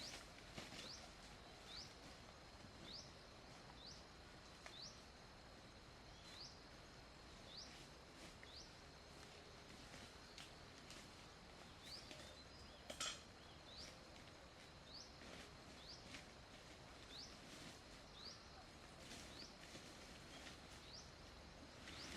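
Faint bird chirps: short, high rising notes repeated about once a second over a quiet background hiss, with a single sharp click about halfway through.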